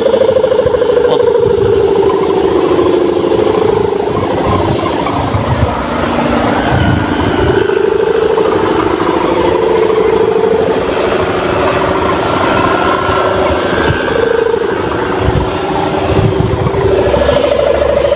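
Kite hummer (sendaren) on a flying kite, its bowed ribbon buzzing in the wind with a loud, steady drone whose pitch wavers up and down as the wind presses on it.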